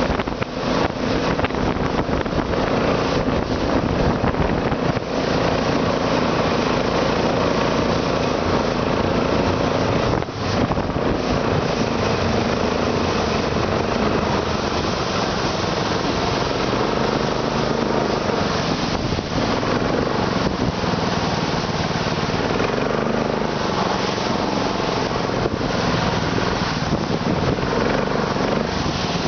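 Internal combustion engine running steadily with a knock in the engine.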